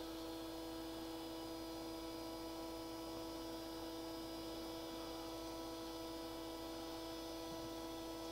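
Steady electrical hum: a constant mid-pitched tone with fainter tones above it and a low drone underneath, unchanging throughout.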